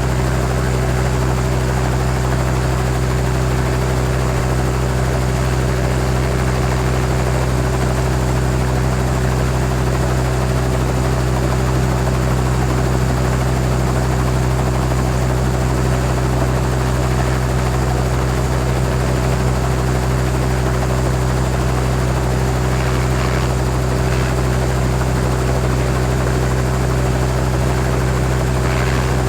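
Helicopter heard from outside, running steadily: an even, unchanging rotor and engine drone with a strong low hum.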